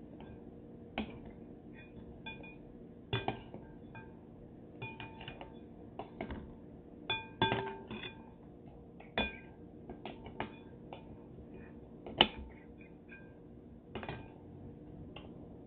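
Irregular clinks and knocks on a clear glass bowl as hands peel shrimp over it, several knocks leaving a brief ring of the glass. The loudest knocks come about halfway through and again about three-quarters of the way through.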